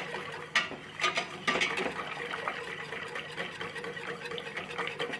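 A spoon stirring hot liquid in a small saucepan on the stove, with a light clink of the spoon on the pan now and then and a liquid sloshing underneath; the stirring stops near the end.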